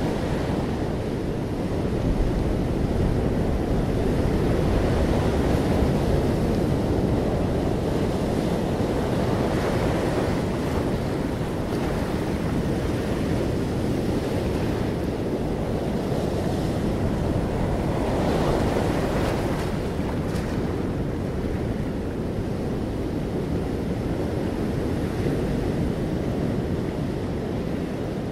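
Steady rushing noise, like wind or surf, that slowly swells and eases, loudest in the low range.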